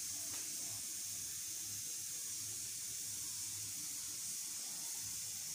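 A steady high hiss with no distinct events.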